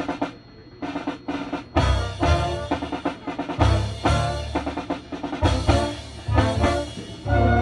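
Marching band playing, with the drum line and the winds hitting a run of short, accented chords over snare and bass drum.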